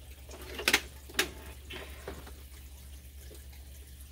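Hard plastic clacks as the canister filter's lid is handled against its housing: two sharp knocks about half a second apart about a second in, then a lighter one, over a steady low hum.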